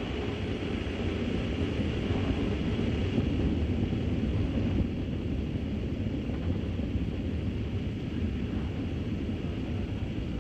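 Soyuz-FG rocket's engines in ascent, heard from the ground as a steady low rumble, a little louder about three to four seconds in.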